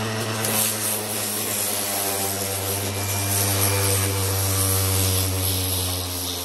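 Electric sander with a 60-grit pad running steadily on the concrete of a garden fountain: a steady motor drone over a broad hiss of the paper on the surface, getting a little quieter near the end.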